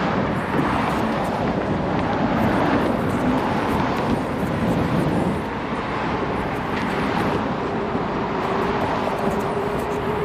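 Wind rushing over the microphone and road noise while riding a Begode Master V4 electric unicycle, with a faint steady whine coming in about six seconds in.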